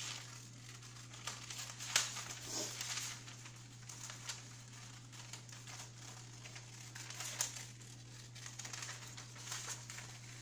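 Scissors cutting a circle out of a sheet of parchment paper, the stiff paper crinkling and crackling irregularly as it is turned and snipped.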